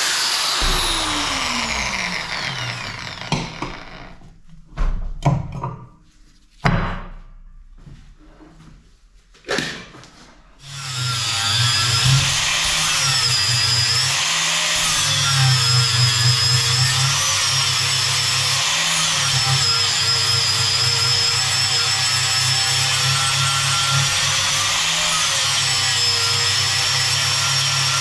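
A handheld electric power tool winds down at the start, its pitch falling away. A few clicks and knocks follow in a short lull. Then about eleven seconds in the tool starts again and runs loud and steady, its high whine dipping and recovering over and over as it bites into the work.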